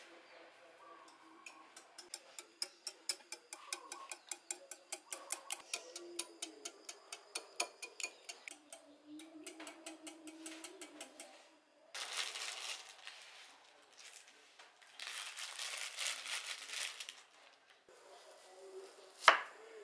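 A wire whisk beating eggs in a glass bowl, the wires clicking against the glass several times a second. Two stretches of hiss follow, then near the end a chef's knife cuts through an onion and strikes the wooden cutting board with one sharp knock, the loudest sound.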